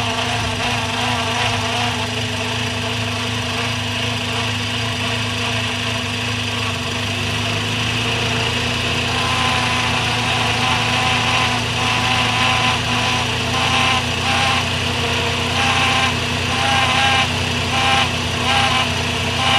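Toyota Corolla Levin engine running at a steady idle. From about nine seconds in, an intermittent whining tone comes and goes over the hum; this is the abnormal engine noise the owner set out to record.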